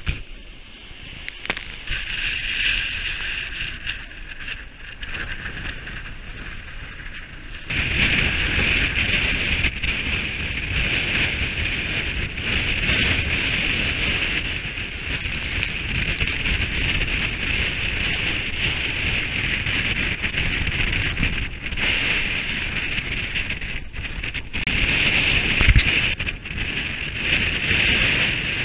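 Gale-force wind buffeting the microphone on the deck of a heeled sailboat, with sea water rushing and breaking along the hull. The noise steps up suddenly about eight seconds in and stays loud.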